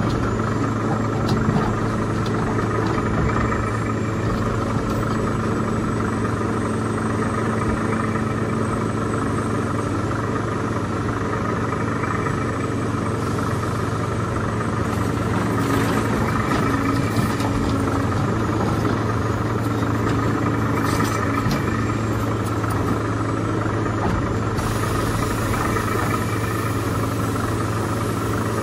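Steady engine idle: a low, even drone with a constant hum above it. It is the engine sound that goes with the RC excavator as it digs soil.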